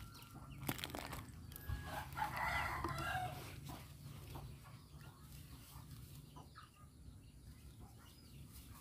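A rooster crowing once, for about a second, starting about two seconds in, with a few faint clicks near the start.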